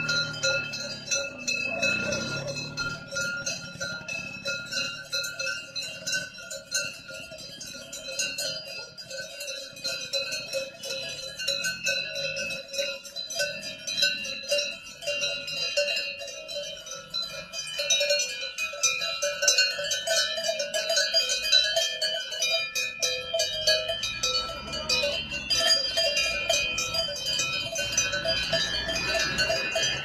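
Many cowbells worn by a herd of walking cattle, clanging and jangling together without a break, their ringing tones overlapping.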